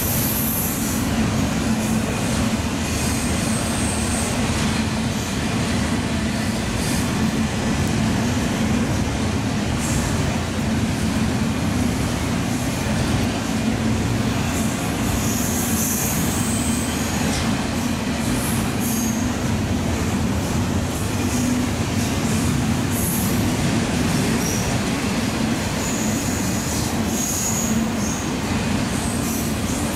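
Double-stack intermodal freight train cars rolling steadily past: a continuous heavy rumble of steel wheels on rail, with brief high-pitched wheel squeals coming and going.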